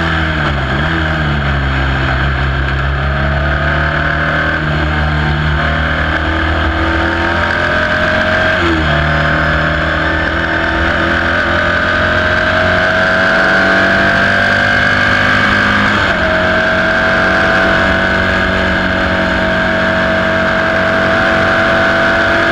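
Sports 2000 racing car's four-cylinder engine heard from the cockpit while racing at speed, running loud and steady at high revs. Its pitch dips and recovers sharply near the start, breaks briefly about eight and a half seconds in, and steps up about sixteen seconds in.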